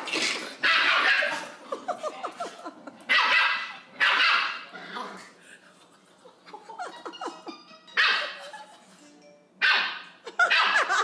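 Dogs play-fighting, with high yapping barks coming in short bursts several times: at the start, around three and four seconds in, and again near eight and ten seconds.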